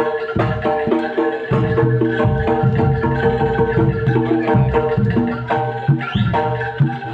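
Live Javanese jaranan gamelan music: struck metallophones play a quick, even repeating pattern over drum strokes, with one note held steady underneath.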